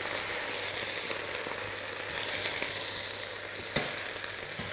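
Fresh spinach sizzling in a hot stainless-steel saucepan as the heat starts to come into the leaves, with the leaves being turned over with metal tongs. One sharp click near the end.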